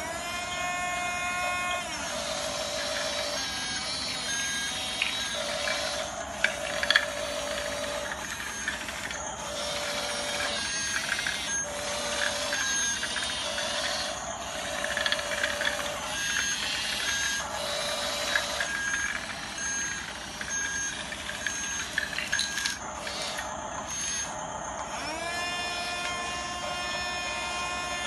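Toy RC bulldozer's small electric drive motors whining as it tracks and pushes, rising in pitch as they spin up at the start and again near the end, with gear clicks and an electronic beeping that pulses on and off.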